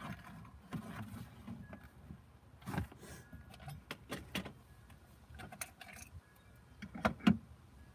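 Small hard objects clinking and knocking against each other as a hand rummages through a cardboard box of stored items, in scattered short clicks with a few louder knocks near the end.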